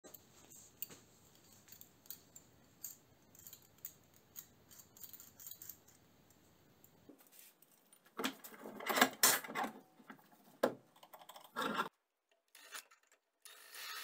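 Small metallic clicks and rattles from a metal sliding-bolt latch being handled. They are scattered and faint at first, then louder and denser about eight to ten seconds in, as the latch is set into the jaws of a bench vise.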